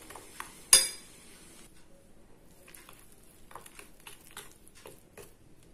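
A steel spoon clinks once against a steel bowl about a second in. Then come faint soft rustles and light ticks of a hand mixing ragi flour and curd in a bowl.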